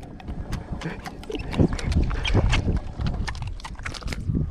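Irregular knocks and dull thumps against a small fishing boat while a heavy hooked largemouth bass is fought at its side.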